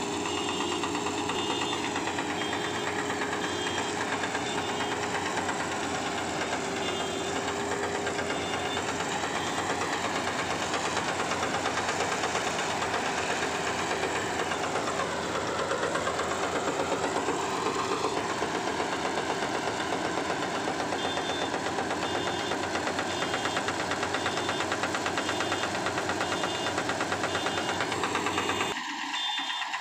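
Engine of a rice reaper running steadily with a rapid, even knocking beat. Its pitch sags and recovers around the middle, and the sound shifts abruptly near the end.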